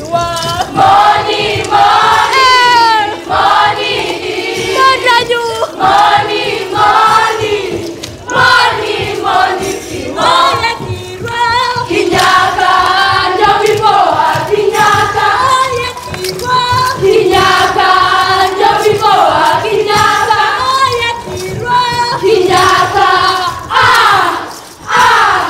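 Group of Pokot dancers singing a traditional dance song together, with a few high sliding notes sweeping through about two seconds in and again near the end.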